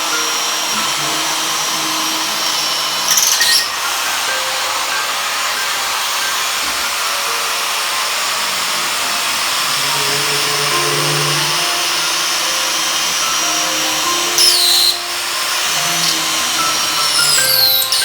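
Power drill running with a 6 mm core bit boring a hole through vitrified tile: a steady loud grinding whine, with brief louder surges about three seconds in, around fourteen seconds and near the end.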